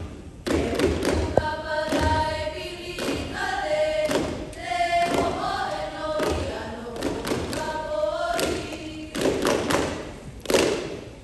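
A chorus of voices singing a Hawaiian mele for hula, with sharp percussion strikes throughout. The strikes come thicker and louder late on.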